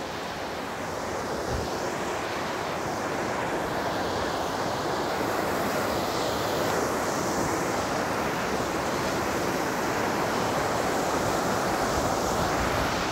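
Water rushing steadily through a channel between granite boulders: a constant hiss that grows a little louder in the first few seconds.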